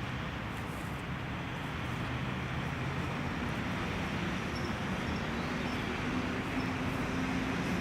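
Steady rumble of road traffic, an even wash of noise with a low hum, slowly growing a little louder.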